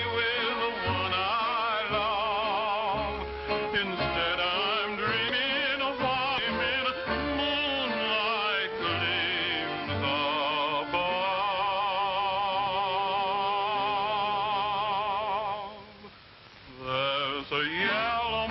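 A slow cowboy ballad melody carried with strong vibrato in an operatic style over a steady low accompaniment; it breaks off briefly near the end, then picks up again.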